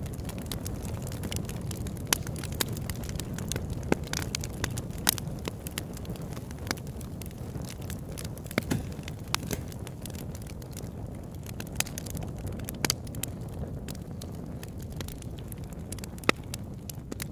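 Campfire burning: a steady low noise from the flames, with irregular crackling and a few louder sharp pops from the burning wood.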